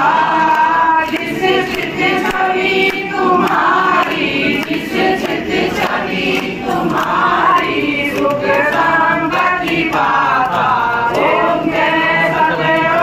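Congregation of men and women singing a devotional aarti hymn together without a break.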